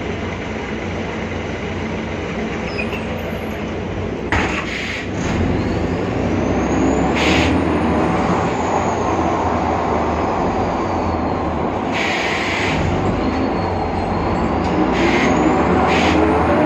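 Cabin ride noise of a BredaMenariniBus Avancity Plus city bus under way, with a high whine from its differential that rises in pitch, peaks and falls away, then rises again near the end; the whine is the strange differential sound the uploader attributes to a faulty differential. A few short hisses cut in along the way.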